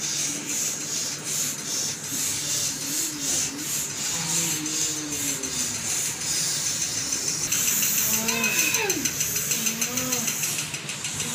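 Several people breathing rapidly and forcefully in a rasping, pulsing rhythm, with wavering moans and cries that rise and fall over it, louder near the end.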